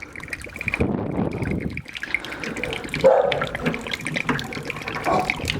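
Water gushing out of a tankless water heater's opened service valve as the unit drains, with a louder surge about three seconds in.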